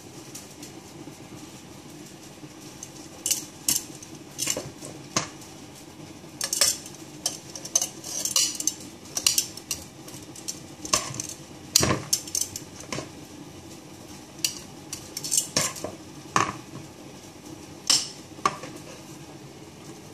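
Metal kitchen tongs clicking and knocking against a ceramic slow-cooker crock while chicken feet and meat are shifted around inside it. The clatters come in irregular bunches, starting about three seconds in.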